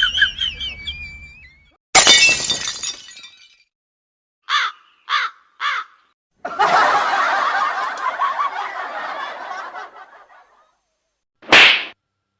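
A string of separate comedy sound effects: a sudden crash that dies away, three short pitched blips, a few seconds of laughter-like chatter, then a short sharp burst near the end.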